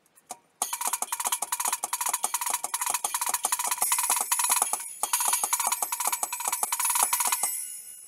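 Drum kit played with sticks: a fast, even run of strikes that breaks briefly about five seconds in, then cymbals ringing out and fading near the end.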